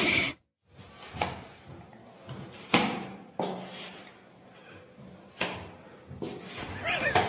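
A few sharp knocks or thuds, three of them spaced a second and a half to two and a half seconds apart, the second loudest, over a faint background.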